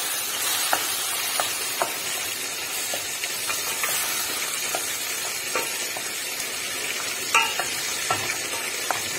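Beef keema with tomatoes and spices sizzling in a metal pot on high heat with no water added, while a wooden spatula stirs it, scraping and clicking against the pot at irregular moments.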